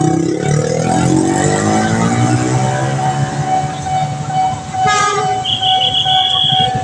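A train passing over a railway level crossing while the crossing alarm sounds a steady tone throughout. About five seconds in there is a sharp click, then a short high-pitched tone lasting about a second.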